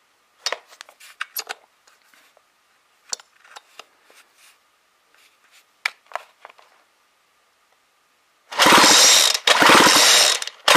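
Light clicks and taps of handling, then near the end two quick pulls of the recoil starter cord, each about a second long, on a McCulloch Eager Beaver two-stroke chainsaw. The engine spins freely with a ratcheting whirr because the spark plug is out, cranked over for a spark test.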